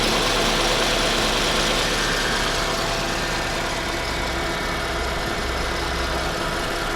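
Chevrolet Aveo's F14D4 1.4-litre four-cylinder engine idling steadily soon after a cold start, with a thin steady whistle over the engine noise, the cold-start whistle this engine makes.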